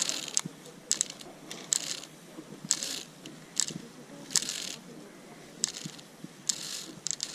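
Metal zip-line harness hardware clicking and scraping in short, irregular bursts, roughly one a second.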